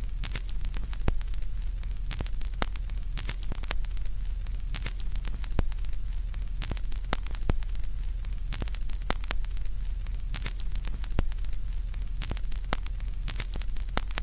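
Vinyl record surface noise from a stylus riding the groove with no music playing: irregular crackles and pops, a couple a second, over a steady low hum and hiss.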